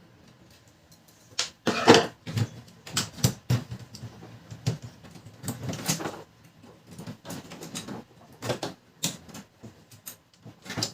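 Parts of a laser printer being handled and fitted during fuser unit work: irregular clicks, knocks and scraping rattles of plastic and metal, starting about a second and a half in.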